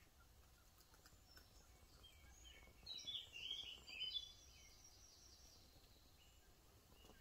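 A bird sings a short burst of quick high chirps and trills about three seconds in, lasting about two seconds, over faint outdoor background noise.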